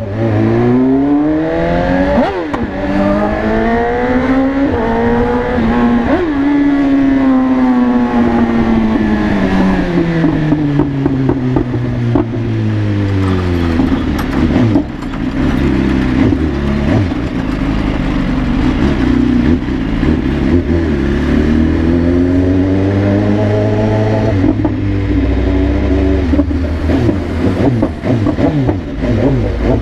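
BMW S1000RR's inline-four engine running loud and revving: its pitch climbs over the first several seconds, falls away steadily until about thirteen seconds in, stays low for a while, then climbs and falls again near the end.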